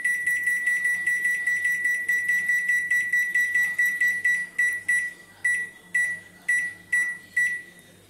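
Samsung microwave oven's control panel beeping as its buttons are pressed to set the cooking time. A fast run of short, high beeps comes first, then single beeps about half a second apart, which stop just before the end.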